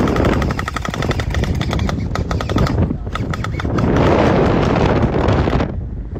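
Electric gel ball blaster firing full-auto out of a moving car's window: rapid, fast-repeating shots in long bursts with a short break in the middle, stopping shortly before the end. Loud wind rush runs underneath.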